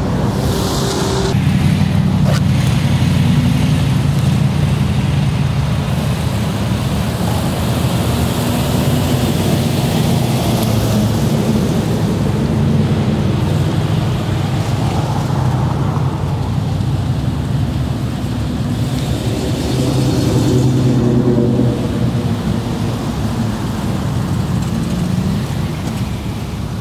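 Engines of classic cars running as they drive away along the road, over a steady wind rumble on the microphone. There are louder swells with more hiss about a second in and again about two-thirds of the way through.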